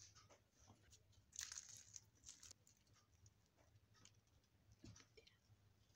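Faint crackling and tearing as a crisp fried egg paratha is pulled apart by hand, loudest about a second and a half to two and a half seconds in.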